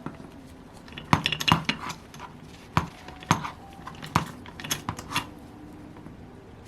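Metal tools and model-engine parts clinking and knocking on a workbench: a string of about eight sharp metallic clinks and taps, some in quick pairs.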